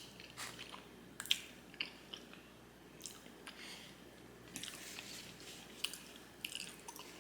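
A person chewing a mouthful of black bean noodles, with short mouth clicks scattered through.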